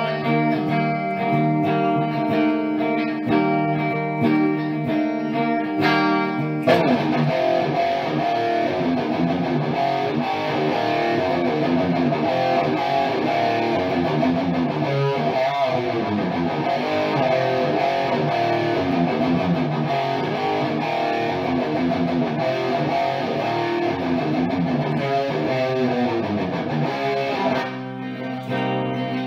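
Electric guitar, a PRS CE-3 with 57/08 pickups, playing a rock song: held chords for the first few seconds, then about seven seconds in the music turns suddenly fuller and denser, thinning out again near the end.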